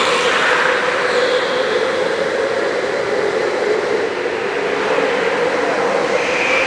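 Go-kart engines running in a large indoor track hall: a steady drone that dips a little midway and grows louder near the end as karts come closer.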